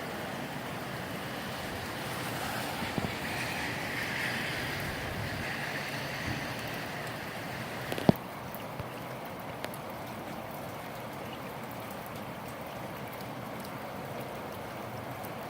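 Gusty wind with rain falling. A gust swells about two seconds in and eases off, and a single sharp knock sounds about halfway through.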